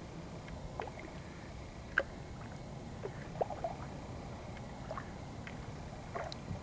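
Kayak paddling: scattered drips and small splashes of water off the paddle, the sharpest about two seconds in, over a low steady background rumble.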